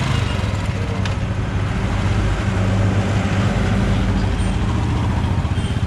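Royal Enfield Classic 350 BS6's single-cylinder engine idling with a steady low thump, over road traffic.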